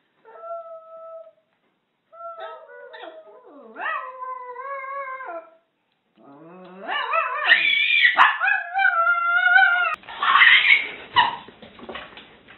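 Small Chihuahua-type dog howling in drawn-out, wavering calls with short pauses between them, the calls growing longer and louder toward the middle. About ten seconds in, the howling gives way to a jumble of noisier sounds.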